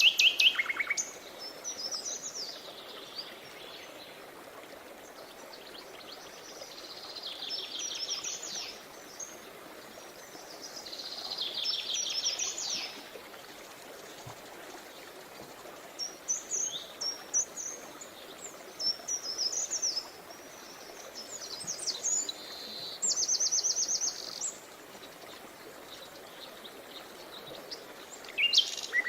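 Songbirds singing in short, rapid trilling phrases and scattered chirps, loudest at the start and again near the end, over a steady rush of flowing river water.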